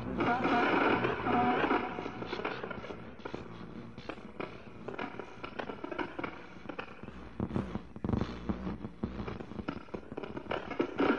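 Harsh noise music played from a cassette: a dense wash of distorted noise that thins after about two seconds into sparse, irregular crackling and sputtering clicks.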